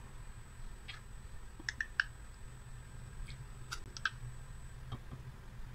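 Faint, scattered clicks of a plastic spoon against a glass jar as water kefir grains are scooped out and tipped into another jar, with a few quick clicks together about two seconds in and again near four seconds.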